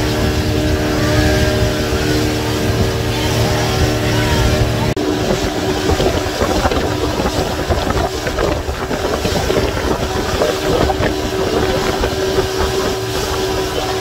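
Motorboat engine running at a steady pitch under rushing wind and water. About five seconds in the sound changes abruptly: the engine drone drops back and the rough rush of wind and splashing water takes over.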